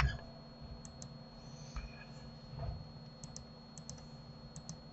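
Quick clicks of a computer mouse and keyboard, in four pairs about a tenth of a second apart, after a low knock at the very start.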